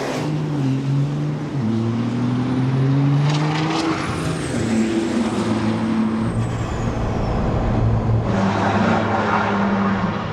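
Two diesel pickup trucks, a Cummins-powered Dodge Ram and a Ford F-350, launching side by side at full throttle in a quarter-mile drag race. Their engines rev up through the gears, the pitch climbing and dropping back at each shift, with a thin high whistle rising and falling above the engine sound.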